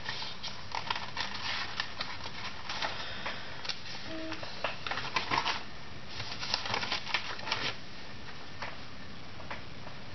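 Paper rustling in quick, irregular bursts as the pages of a spiral-bound sticker book are leafed through and sticker sheets handled. A brief squeak about four seconds in.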